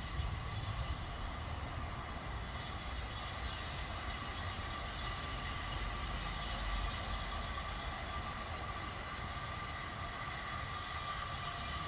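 LMS Fairburn 2-6-4 tank steam locomotive in steam some way off: a steady hiss over a low rumble, with no exhaust beats.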